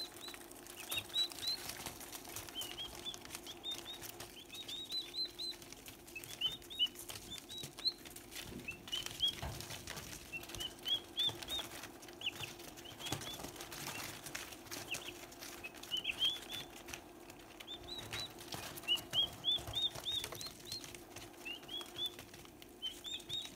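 Turkey poults peeping: short high chirps in quick runs of three to six, repeated every second or two, over scattered taps and rustles of pecking and scratching on newspaper.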